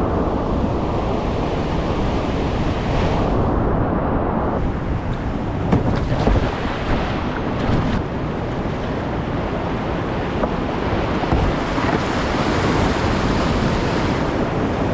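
Rushing whitewater, loud and steady, with water and wind buffeting the microphone. A few short sharp hits stand out about six to eight seconds in.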